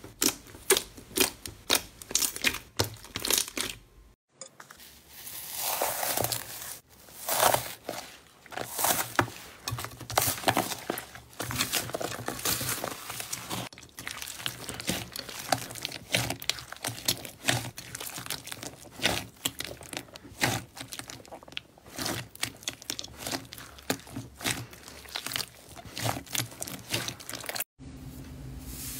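Hands pressing and squishing slime, making rapid sticky clicks, pops and crackles. The sound breaks off briefly about four seconds in and again near the end, where the clips change.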